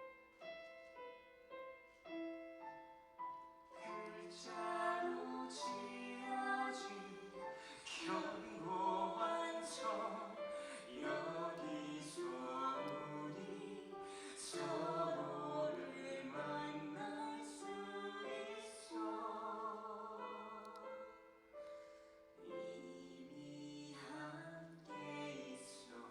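Musical-theatre number: piano alone for the first few seconds, then singing with vibrato over the piano accompaniment, thinning out near the end.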